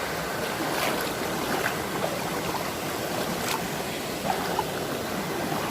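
Steady rushing of a shallow river or stream running over rocks, with a small cascade nearby.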